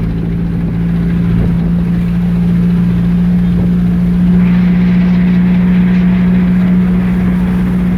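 Vehicle engine running at a steady pitch, a loud even hum with a low rumble underneath.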